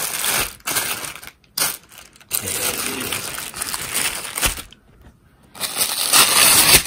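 Thin clear plastic wrapping crinkling and rustling in irregular bursts as it is handled and pulled off a knife, with a short pause and the loudest crinkling near the end.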